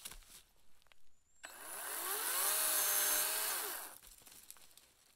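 Battery-powered chainsaw starting about a second and a half in with a rising whine, running steadily for about two seconds as it cuts dry garden stalks at ground level, then winding down and stopping. Faint rustles and snaps of handled stalks come before and after.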